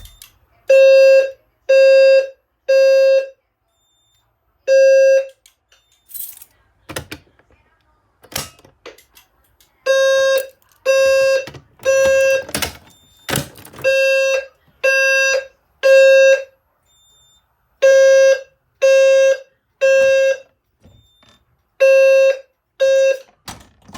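EST Genesis low-frequency fire alarm sounder sounding its 520 Hz buzzy tone in the temporal-3 evacuation pattern: three half-second beeps, a pause, and then repeat. Early on the pattern breaks off after a lone beep and resumes about ten seconds in. Sharp clicks and knocks fall between the groups.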